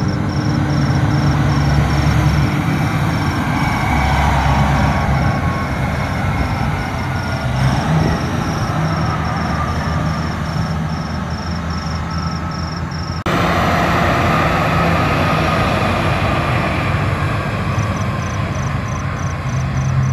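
Caterpillar 777 haul truck's big diesel engine running as the truck drives past, a steady low drone with tyre and road noise. About 13 seconds in the sound jumps suddenly louder and changes. A faint high pulsing tone repeats about twice a second for much of the time.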